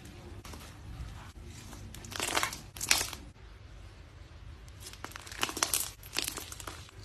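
Crinkling, crunching noise in two bouts, each about a second long, around two and five seconds in.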